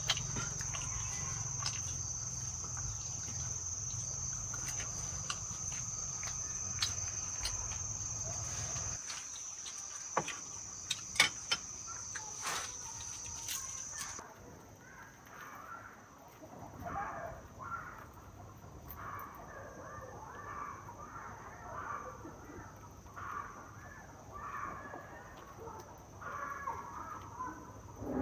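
Countryside ambience: a steady high insect trill over a low rumble for about the first half, with a few sharp clicks around ten to thirteen seconds in. About halfway through the trill fades, and short scattered calls follow.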